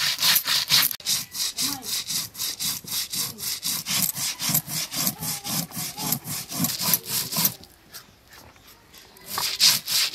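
A stone roller rubbed back and forth on a flat stone grinding slab (sil-batta), grinding wet cumin and coriander seeds into paste: a rhythmic gritty scraping at about four strokes a second. It pauses for about a second and a half near the end, then starts again.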